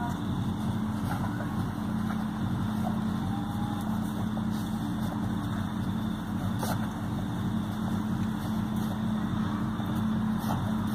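A steady low mechanical hum, unchanging in pitch and level, with a few faint light clicks scattered through it.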